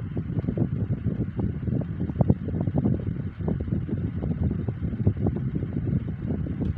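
Wind noise: moving air buffeting the microphone in an uneven low rumble.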